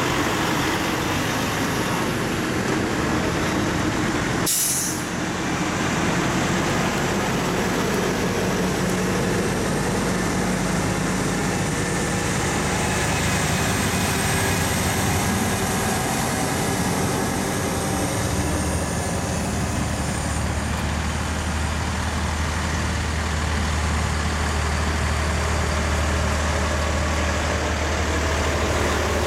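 A convoy of heavy diesel trucks rolling past at low speed, engines running steadily. A short air-brake hiss sounds about four and a half seconds in, and a deeper engine drone grows stronger past the middle as a truck draws near.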